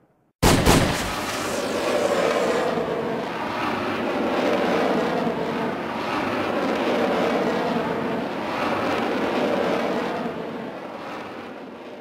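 Bullet-time sound effect: a sudden loud hit about half a second in, followed by a long, noisy sustained tail that swells and eases several times and fades near the end.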